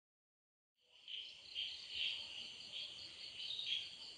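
Crickets chirring at night: a steady, high, pulsing insect chorus that fades in out of complete silence about a second in.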